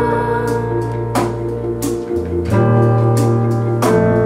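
Live band playing an instrumental passage between vocal lines: sustained guitar and keyboard chords over bass and drums, with a cymbal-like hit about every second and a half.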